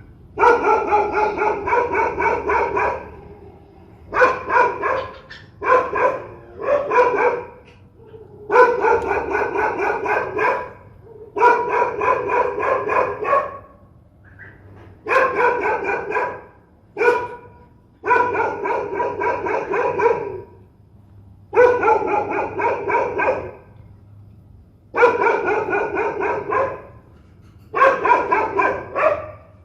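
Dog barking fiercely in repeated bursts of rapid barks, each burst a second or two long, with short pauses between.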